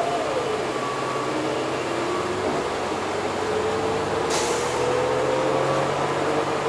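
Inside a moving city bus: engine and drivetrain running over steady road noise, with a whine that drops sharply near the start and then climbs slowly as the bus gathers speed. A short hiss of compressed air comes a little past halfway.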